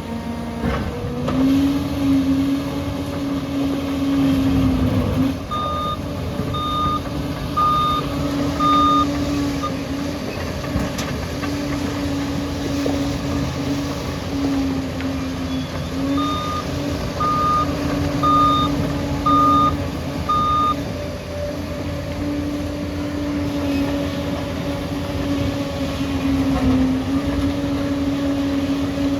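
Liebherr bulldozer's diesel engine running steadily under working load, with its pitch dipping and recovering now and then. Twice the reverse alarm sounds a run of about four or five beeps, one a second, as the dozer backs up.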